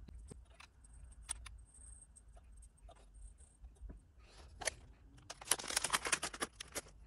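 Small clicks and scrapes as lamp sockets are handled and cleaned with a cotton swab, then a plastic packet crinkling as it is bent and opened, loudest about five seconds in.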